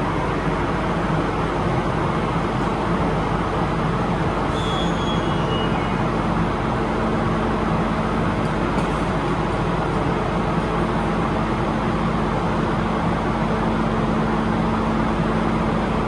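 MTR K-train electric multiple unit standing at an underground platform, giving a steady hum with a low steady tone. A brief faint falling tone comes about four and a half seconds in.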